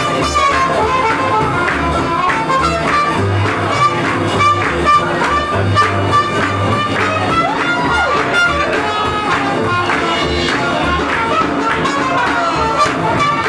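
Swing jazz band playing an up-tempo number: brass and saxophone horn lines with a long held note and a couple of swooping glides, over a steady bass and drum beat.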